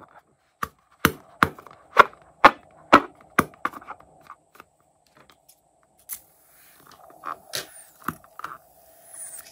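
Sharp clicks and crackles from hands squeezing and handling a filled rubber balloon: about eight loud ones, roughly two a second, in the first few seconds, then fainter, more scattered ones.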